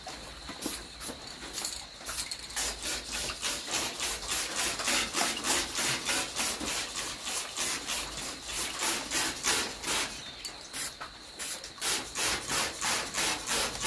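Hand-pump spray bottle squirting water onto freshly sprayed paint in quick repeated pumps, roughly two to four short hissing squirts a second, to break up the paint into a speckled fake-patina texture.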